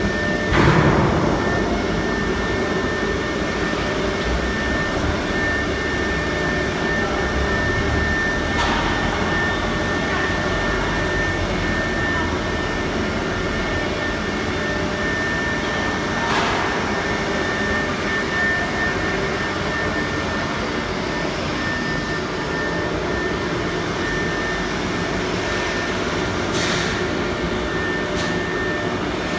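Heavy CNC router machine running: a steady mechanical whir with a thin, high steady whine, broken by four short hissing bursts several seconds apart.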